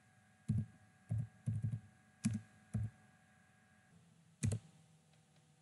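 Computer keyboard being typed on: about eight separate keystrokes at an uneven pace in the first three seconds, then a single louder keystroke about four and a half seconds in.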